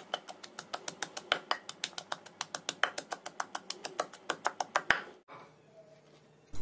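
Wooden pestle pounding shallots and garlic in a wooden mortar, crushing them to a fine mash: a quick, even run of knocks, about five a second, that stops about five seconds in.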